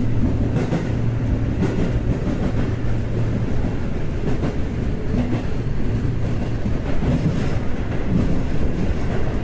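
Subway train running through a tunnel, heard from inside the car behind the driver's cab: a steady rumble of wheels on rail with occasional clicks over rail joints. Under it is a low hum that fades about three and a half seconds in.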